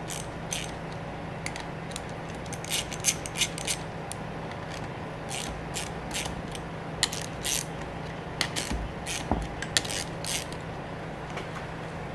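Hand ratchet wrench clicking in short runs of quick clicks with pauses between, as bolts draw a compressor's shaft-seal clamping plate down.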